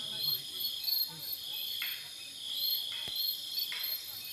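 Crickets trilling in the dark, a high insect trill that comes in repeated stretches of about a second each, over a faint low background murmur.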